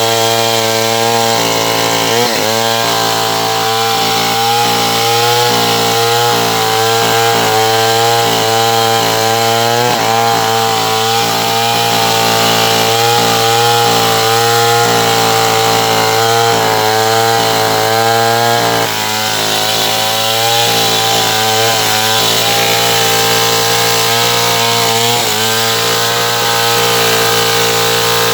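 Stihl 070 two-stroke chainsaw running under load, cutting sengon wood. The engine note runs steadily loud but wavers in pitch as it works, with a few brief dips.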